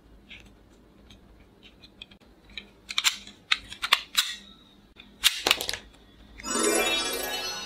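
Plastic clicks and snaps of a toy revolver being handled: cartridges pushed into the cylinder, then sharp clicks as the cylinder is swung shut and the gun worked. About six and a half seconds in, a loud buzzy transition sound effect starts and slowly fades.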